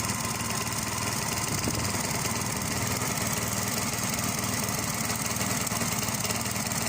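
Restored lawn mower's Tecumseh engine running steadily and evenly, with no misfires.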